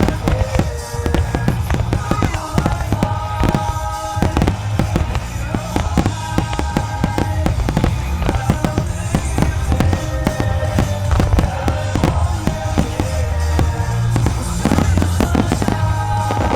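Fireworks shells bursting in quick, dense succession during a finale barrage, with music playing over the reports.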